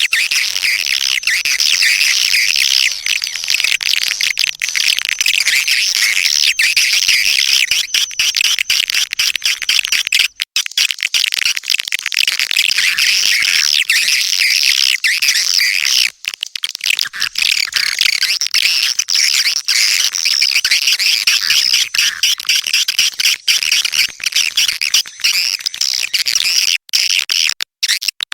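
Swiftlet lure call: a dense, continuous chatter of rapid high-pitched swiftlet chirps and twitters, the recording used to draw swiftlets into a nesting house. There are a few brief dropouts.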